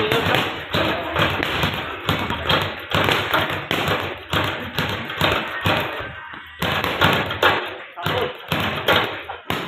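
Rapid taps and thuds of gloved punches on a double-end bag, about three or four a second, with the ball slapping back on its cords between hits.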